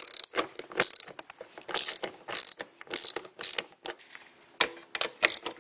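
3/8-inch ratchet with a 10 mm socket on an extension clicking in short, rapid bursts as it loosens the engine cover bolts.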